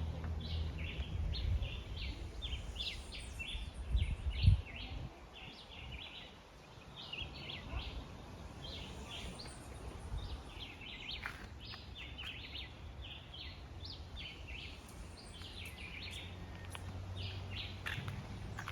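Birds chirping steadily in short repeated notes, over a low rumble of wind or handling noise, with a sharp thump about four and a half seconds in.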